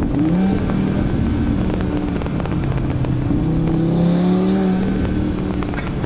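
Audi RS3's turbocharged 2.5-litre five-cylinder engine with an Integrated Engineering intake pulling under throttle, heard from a microphone in the engine bay. Revs climb a little after the start and again towards the middle, with a rush of high airy hiss from the intake and turbo around four seconds in, before the note eases off near the end.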